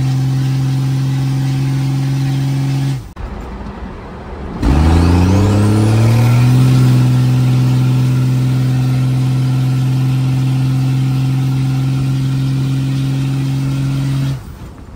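First-gen Dodge Ram's 1991 12-valve Cummins inline-six turbodiesel, heard from inside the cab while driving: a steady engine drone that breaks off about three seconds in. A second or so later the engine pulls up from low revs with a thin whistle rising alongside, then holds a steady drone until near the end.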